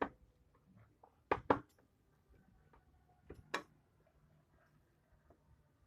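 A few sharp clicks or knocks: one at the start, a close pair about a second and a half in, and another pair about three and a half seconds in, with faint steady tones underneath.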